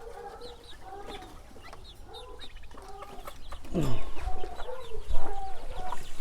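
A flock of game fowl chickens clucking in many short calls, with high chick peeps over them. About two-thirds through, one loud call slides steeply down in pitch, and bumping low thuds follow.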